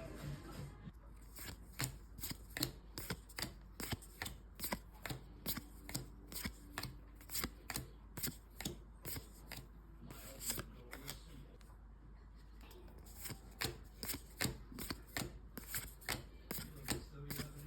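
Trading cards being flicked through one after another, a run of sharp card snaps about two or three a second, with a short pause about two-thirds of the way through.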